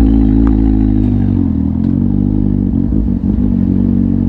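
Kawasaki Z750's inline-four engine with an Akrapovic exhaust running at low, fairly steady revs, its pitch easing down and back up slightly a couple of times.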